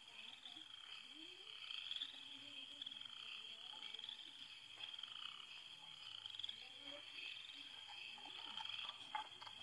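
Faint chorus of frogs calling at night, a steady high-pitched trilling that keeps on without a break.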